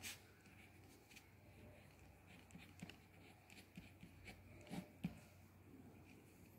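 Faint scratching and light ticking of a ballpoint pen writing on paper, with a couple of sharper taps about five seconds in.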